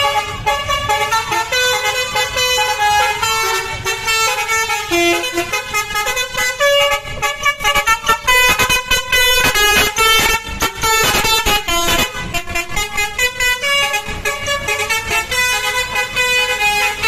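Basuri 'telolet' musical bus horn playing a rapid tune of short notes that change pitch every fraction of a second. It is loudest about eight to twelve seconds in.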